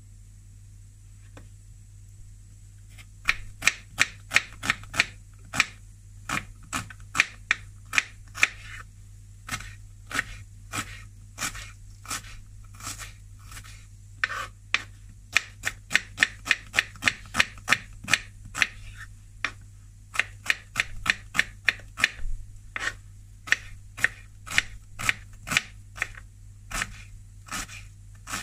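Kitchen knife chopping onion on a wooden cutting board: quick strikes of the blade against the board, about three a second, starting about three seconds in and going on with short pauses.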